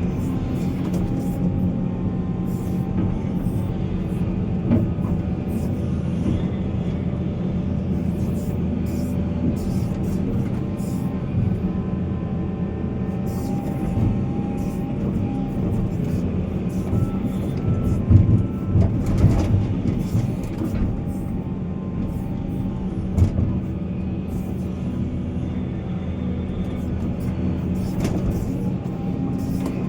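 Heavy earthmoving machinery at a mine, an excavator or dump truck, with its diesel engine running in a steady deep drone. A cluster of knocks comes about two-thirds in, and another a few seconds later.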